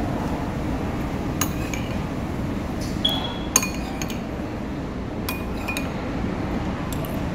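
Metal spoon and fork clinking against a bowl during a meal: several short, ringing clinks spaced irregularly, over a steady background hum.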